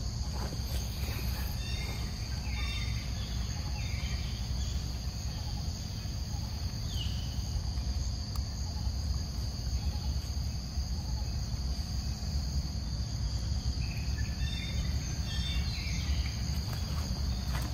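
Steady, high-pitched drone of insects, unbroken throughout, over a low steady rumble.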